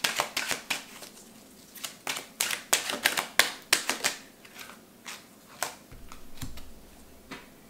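A deck of oracle cards being shuffled by hand: runs of quick card clicks and flicks, pausing after about a second and picking up again from about two to four seconds in, then a few scattered taps.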